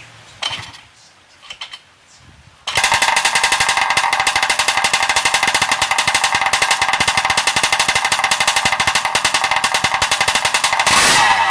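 Small motorbike engine running loudly through a test-fitted aftermarket jog pipe exhaust: a fast, even rattle of exhaust pulses that comes in suddenly about three seconds in and swells briefly near the end.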